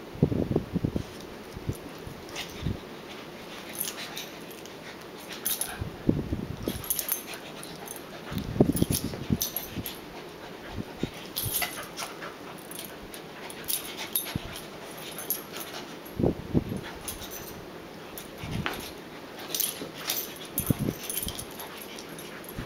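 Two dogs play-fighting, with short bursts of low growling every few seconds and scattered sharp clicks from the scuffle.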